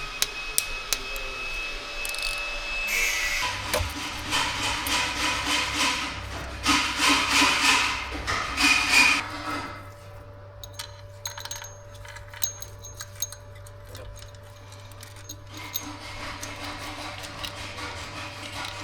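Hand-tool work on an engine under reassembly: scattered metallic clicks and taps, with a stretch of rapid rasping, scraping strokes in the middle.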